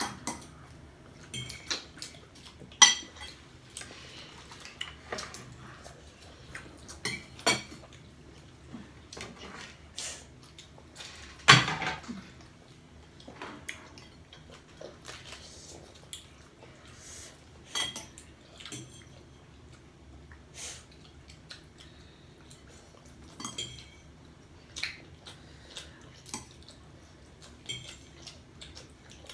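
Cutlery clinking against plates and bowls as people eat, in irregular light clicks with a few sharper knocks, the loudest about eleven and a half seconds in.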